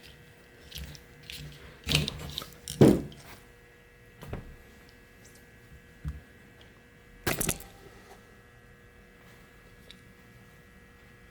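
Scattered plastic clicks and knocks as a windshield wiper blade is pushed off the hook of its wiper arm, with the release lever held in. There are about five of them, the loudest about three seconds in, over a faint steady hum.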